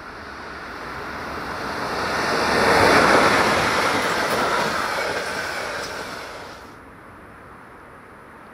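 A freight train hauled by an electric locomotive passes close by: the rushing rumble of its wagons' wheels on the rails swells to a peak about three seconds in, then fades. Near the end the sound drops off abruptly to a low steady background.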